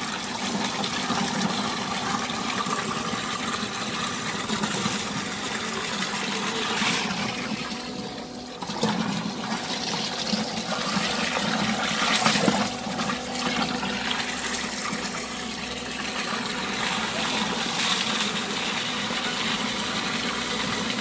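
Strong jet of water from a garden hose pouring into a plastic drum of water, a steady splashing rush, driven by a brushless multistage solar submersible pump running on 48 V. It goes briefly quieter about eight seconds in.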